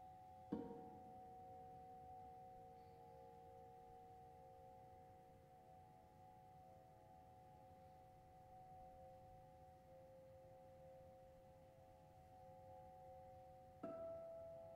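Soft vibraphone notes: a light mallet stroke about half a second in and another near the end, each leaving a few pure, bell-like tones ringing on for many seconds.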